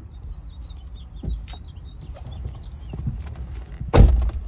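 Knocks and thumps as a person climbs into an SUV's driver's seat, the loudest, lowest thump about four seconds in as she sits down. A faint run of short high chirps is heard in the first two seconds.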